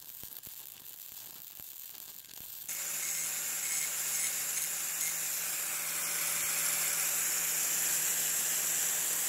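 Lincoln 140 MIG welder arc crackling for the first few seconds, then an angle grinder running on steel, much louder, as a steady high whine over a constant motor hum until it cuts off abruptly.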